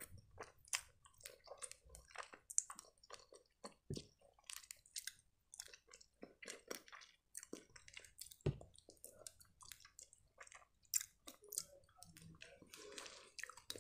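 Faint, close-up chewing with irregular soft wet mouth clicks and smacks.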